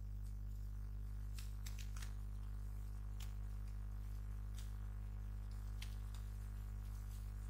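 Steady low electrical hum from the recording chain, with a few faint scattered clicks.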